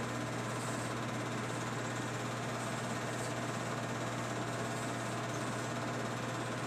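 An 8mm film projector running, a steady mechanical whirr with a low hum that does not change.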